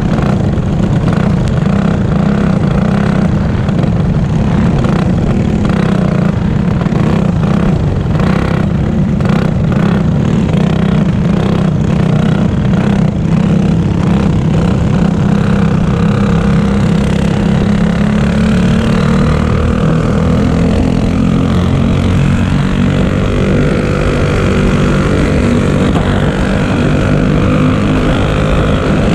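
Single-cylinder four-stroke Clone kart engine running at racing speed, heard on board the kart, its pitch rising and falling as it is throttled through the turns.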